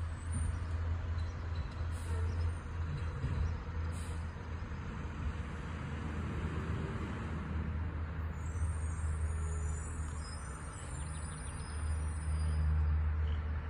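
Garbage truck's diesel engine running steadily, a constant low hum.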